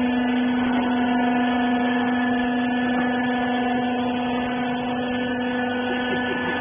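Hydraulic rag baler's power unit running with a steady hum.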